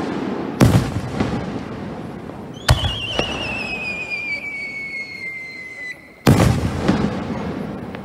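Aerial firework shells going off close to the launch site. A bang comes about half a second in, then a sharp bang at which a whistling shell goes up, its wavering whistle falling in pitch for about three seconds. The loudest bang comes about six seconds in, with echoes after it.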